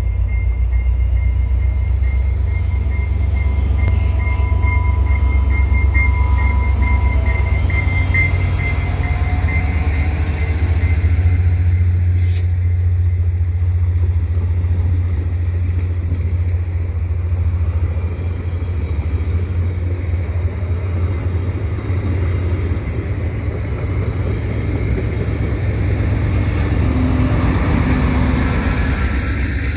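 A VIA Rail diesel passenger train pulls out and passes close by with a heavy rumble. The lead rebuilt EMD F40PH locomotive gives a steady high whine in the first few seconds. The LRC coaches' wheels then roll by on the rails, with one sharp click about twelve seconds in, and the GE P42DC locomotive on the rear passes near the end.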